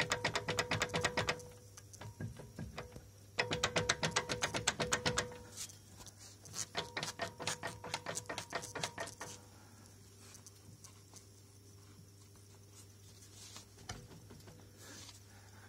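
Rapid clicking from the right driveshaft of a Mitsubishi Toppo, in three runs of one to three seconds each over a steady low hum, then dying away to a few faint clicks. This is the driveshaft knock being checked.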